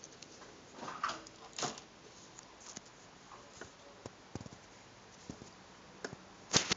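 Gerbil moving about on wood-shaving bedding: scattered light rustles and small clicks, with one sharper click near the end.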